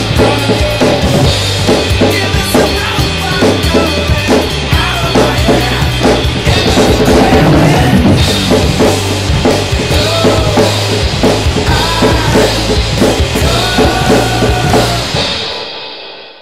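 Gretsch Renown Maple drum kit with Soultone cymbals played hard and fast, kick, snare and cymbals over a rock backing track. The whole mix fades out near the end.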